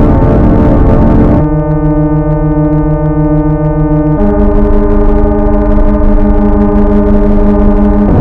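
Computer-generated tones from a Desmos sum of sine waves: a loud held chord of several steady pitches, organ-like, that jumps to a new chord about a second and a half in and again about four seconds in. The tones flutter quickly and carry a distorted noise underneath from overloading the recording.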